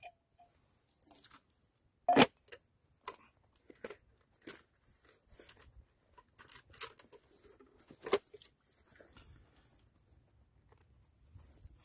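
Handling of a canteen set in its insulated camouflage fabric cover: scattered clicks and light knocks with some fabric rustle, and two sharper knocks, about two seconds in and about eight seconds in.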